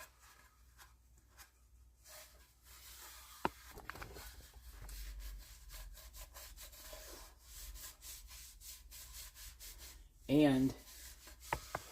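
A disinfecting wipe rubbed over sanded wood in faint, irregular scuffing strokes, used to find jagged spots where it catches. There is one sharp tap about three and a half seconds in.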